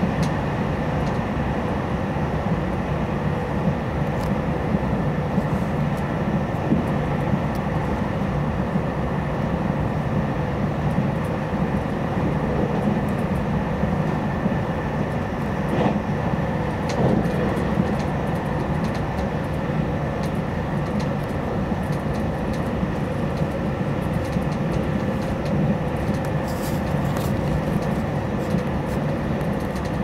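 JR Hokkaido 789 series electric train running at speed, heard from inside the passenger car: a steady rumble of wheels on rail with a steady high hum above it.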